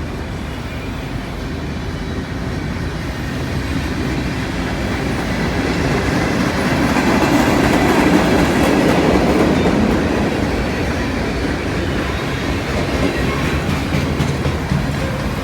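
CN freight train rolling past, its wheels rumbling and clacking over the rails. It grows louder to a peak about halfway through, then eases off a little.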